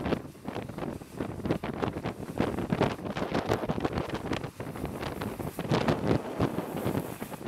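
Wind buffeting the microphone of a camera moving at speed down the road, a rough rushing noise that swells and dips in irregular gusts.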